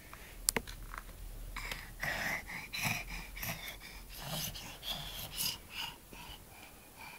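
A baby's breathy huffing and gasping, short puffs of breath one after another, with a sharp tap about half a second in.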